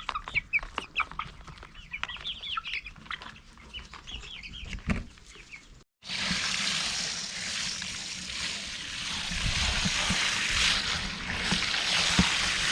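Chickens clucking with short, repeated calls; about six seconds in the sound cuts off abruptly and is replaced by a steady rush of running water.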